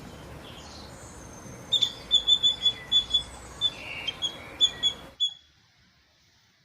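A squirrel giving a quick run of a dozen or so sharp, high chirps, about four a second, over a steady hiss that drops away abruptly near the end.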